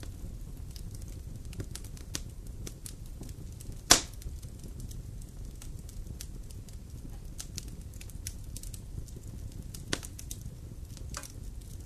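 Campfire burning and crackling, with scattered small snaps over a low rumble. There is a loud pop about four seconds in and another near ten seconds.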